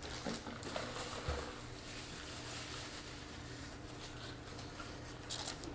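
Soft rustling of food wrapper paper and a paper napkin with quiet eating and handling noises, and a dull thump about a second in.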